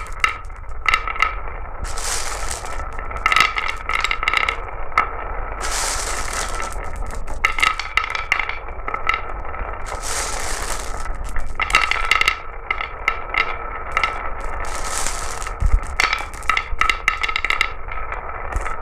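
Glass marbles rolling down a marble run, clicking and clattering against the track and each other, with a rushing roll that comes back every few seconds.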